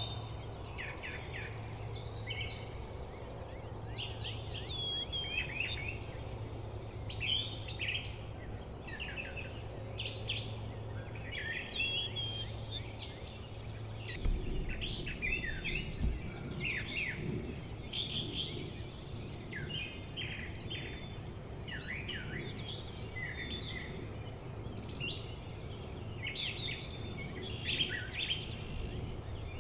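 Many songbirds chirping and singing at once, with overlapping short calls throughout. A steady low hum underlies the first half, and two low thumps come about halfway through.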